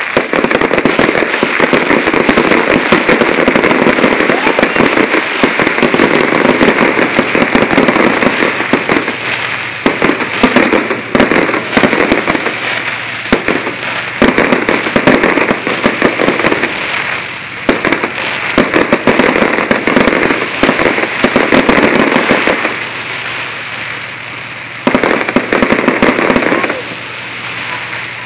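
Fireworks display: a dense, continuous barrage of bangs and crackling, easing off briefly a couple of times near the end.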